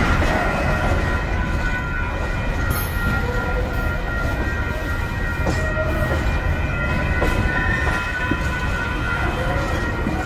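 Container freight train's loaded flat wagons rolling past at a level crossing: a steady low rumble with a few clunks from the wheels. Over it runs the steady ringing of the crossing's electronic warning bells.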